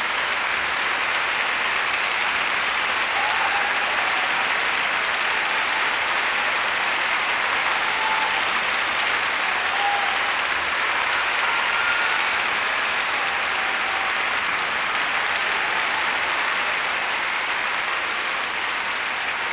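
Large concert-hall audience applauding steadily, with a few short calls from the crowd standing out above the clapping.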